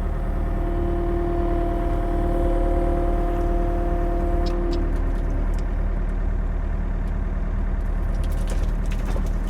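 An engine running steadily, with a steady whine over it that stops about halfway through, and a few light clanks in the second half.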